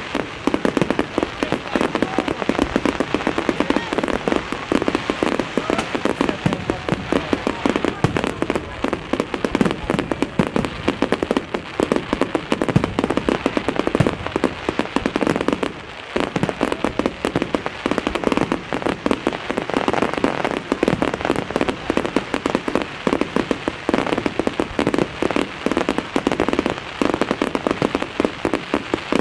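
Fireworks display: a dense, unbroken barrage of bangs and crackling from many shells bursting at once, with a brief let-up about halfway through.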